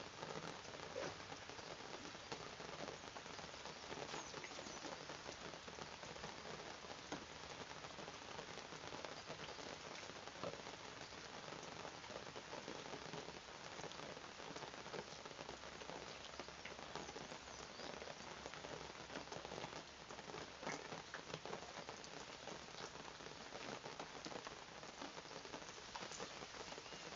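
Steady rain falling, a continuous patter of many small drops.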